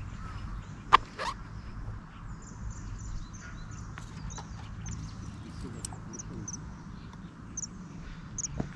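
Outdoor lakeside ambience with a steady low rumble. Two sharp knocks come about a second in, and small birds chirp faintly and irregularly throughout.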